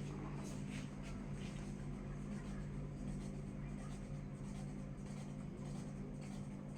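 KDK KY153 ceiling fan running with a steady low motor hum and a few faint light ticks in the first second and a half; the uploader calls the fan noisy.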